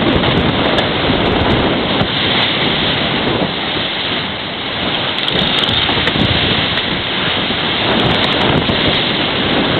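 Wind buffeting the microphone and water rushing past the hull of a Farr 55 racing yacht sailing fast downwind: a loud, steady rush of noise.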